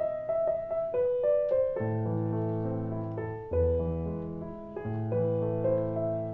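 Piano playing a slow melody, each note struck and left to ring, with deeper bass notes sounding beneath it from about two seconds in.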